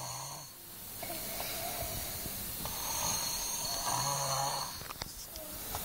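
An overweight boy snoring in his sleep: one snoring breath fades out just after the start, and a fuller one with a low buzz and a raspy hiss comes in the middle.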